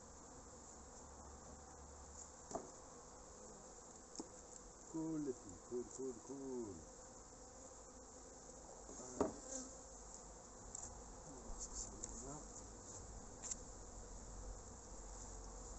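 Honeybees buzzing around an opened hive, with single bees flying close past in short glides that rise and fall in pitch. A few sharp knocks come from handling the hive's wooden cover, the loudest a little past halfway.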